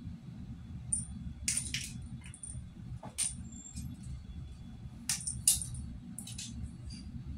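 Small bell on a cat's collar jingling in short, irregular shakes as the cat moves and plays, over a low steady hum.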